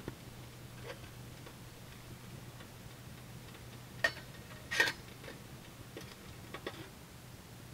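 Metal kettle lid and handle clinking as they are handled on a small wood stove: a few light clicks, a sharp ringing clink about four seconds in and a louder, longer clatter just after.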